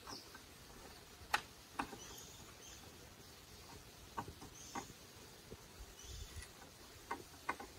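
Sharp knocks of bamboo being worked, coming in pairs about half a second apart, three times, over faint high chirps in the background.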